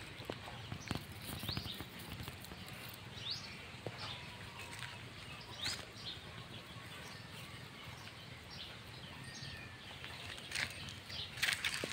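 Outdoor ambience with small birds chirping now and then, short high calls scattered through, over a steady low background noise, with a few faint clicks and rustles.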